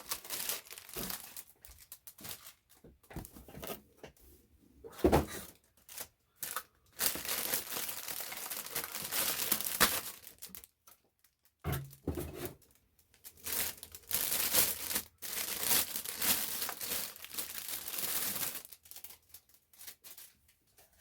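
Packaging being unwrapped by hand: long stretches of crinkling and tearing, with a few short knocks between.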